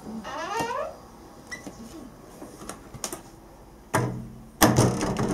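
Interior wooden door with a frosted-glass panel being worked: a sharp knock about four seconds in, then a louder knock and rattle half a second later. Just under a second in, a short wavering whine that glides up and down.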